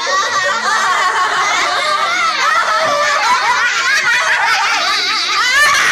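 A group of children laughing loudly together, several high voices overlapping without a break.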